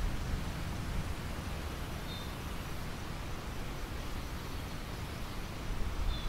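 Wind blowing over a wheat field: a steady rushing hiss with low, uneven rumbling from wind buffeting the microphone. A short high chirp comes about two seconds in and again near the end.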